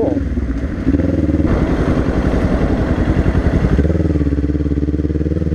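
2022 Kawasaki Ninja 400's parallel-twin engine running at low road speed. A louder, rougher stretch starts about a second in and settles to a steady, even note about four seconds in.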